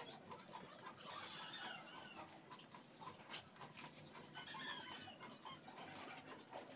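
Faint bird calls in the background, scattered short rising and falling chirps, over soft scratchy strokes of a paintbrush on rough cement.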